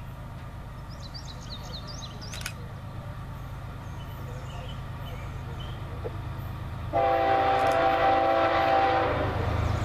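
Diesel locomotive leading a CP Rail crude oil train, approaching with a low engine rumble that grows louder. About seven seconds in, its air horn sounds one long blast of about two seconds, the loudest thing here.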